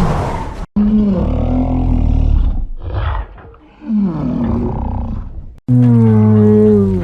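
A run of separate Kong roar and growl sound effects from the 2021 Monsterverse film: deep pitched vocal calls whose pitch slides downward, each cut off abruptly, the last a long held roar starting near the six-second mark.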